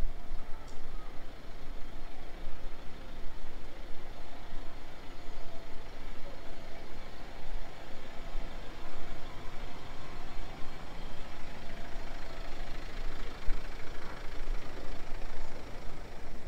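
A motor vehicle's engine running, a steady low rumble with a faint hum.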